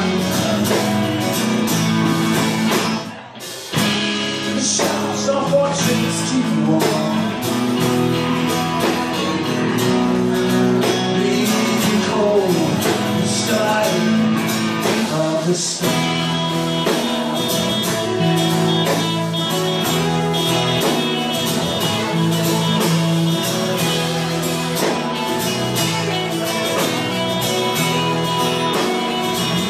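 A rock band playing live: guitars, bass and drum kit, with a short break about three seconds in.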